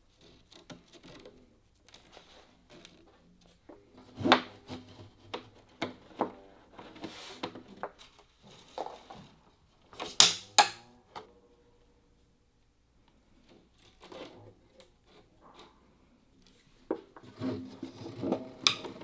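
Gayageum silk strings plucked and left to ring, mixed with knocks and rubbing on the instrument's wooden body. One note is held and fades about two-thirds of the way in, and several notes come together near the end.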